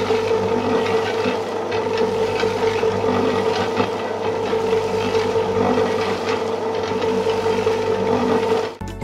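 Small electric motor and gear drive of a miniature DIY concrete mixer turning its drum of wet concrete mix, a steady whine with a gritty rattle. It cuts off suddenly near the end as it is switched off.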